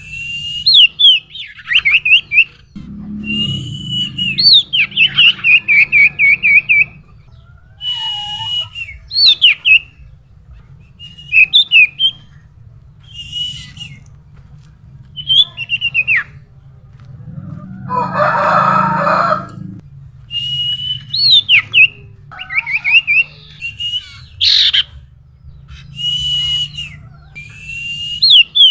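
Common iora singing: short phrases of clear whistled notes, some rising and some dropping into quick wavering trills, repeated every second or two, with a harsher, buzzier call about two-thirds of the way through.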